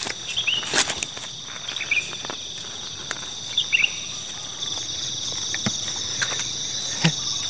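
A steady chorus of crickets and other insects trilling at two high pitches, one of which swells about two-thirds of the way in. Over it come scattered footsteps and rustles of someone pushing through grass and leafy undergrowth, and a few short rising chirps.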